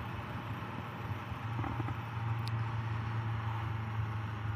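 Motorcycle engine running at a steady cruise, a low even hum under wind and road noise, pulling a little harder from about a second and a half in.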